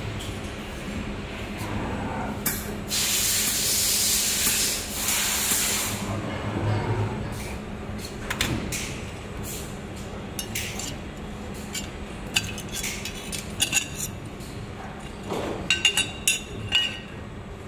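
Workshop sounds around a robotic laser welding machine: a steady electrical hum, with a loud hiss of escaping gas a few seconds in that lasts about three seconds. Scattered sharp clicks follow, then a quick run of metallic clinks near the end.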